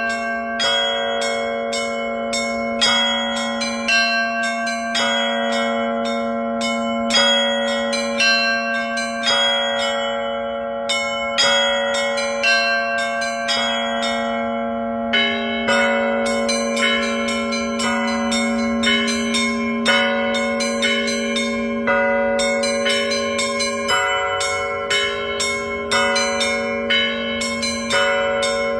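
Russian Orthodox festive peal (slavoslovny zvon) on a set of cathedral bells from the Vera foundry with a large blagovestnik bell of Danilov casting: the smaller bells are struck in a quick, even, repeating pattern, with louder strikes about once a second, over a low ringing tone that carries on underneath throughout.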